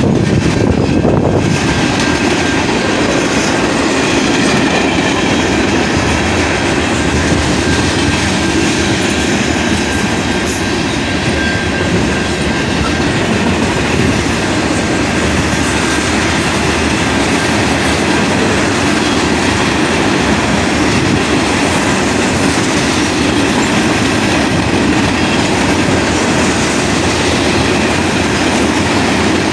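A Canadian Pacific train (CP-131) passing, its rail cars rolling steadily along the track in a loud, continuous rush.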